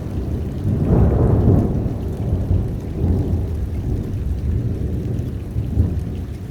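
Thunder rumbling in a heavy rainstorm: a low roll that swells about a second in, then rolls on and slowly fades, over the steady sound of rain.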